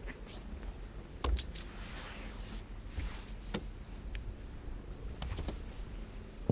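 A few light knocks and clicks with brief soft rustling over a steady low rumble.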